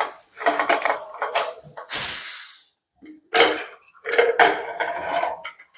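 Metal cooking pot and lid being handled as the pot of boiled greens is opened, with clattering and knocking, and a short, loud hiss about two seconds in.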